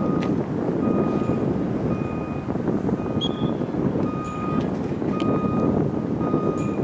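Vehicle reversing alarm beeping about once a second, each beep a short steady tone, over a steady rushing noise.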